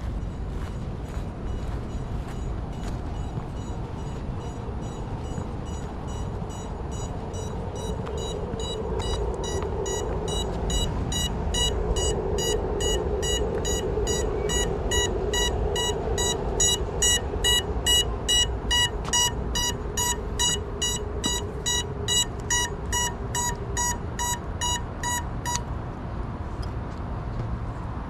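Fast, evenly repeating electronic beeping, about two to three beeps a second. It swells to its loudest midway and stops a few seconds before the end, over a steady hum.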